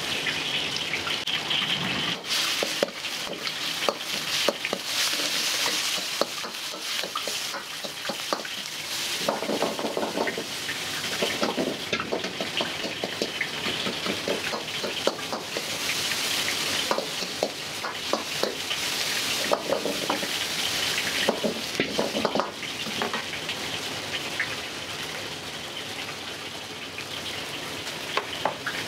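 Food sizzling in a wok while it is stir-fried, with a metal ladle knocking and scraping against the pan many times throughout.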